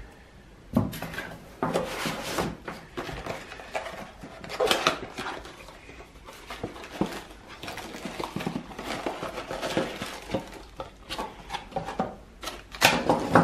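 Unboxing handling noise: metal band straps clinking as they are set down on a table, with cardboard packaging and a plastic parts bag rustling and knocking. The loudest clatter comes near the end.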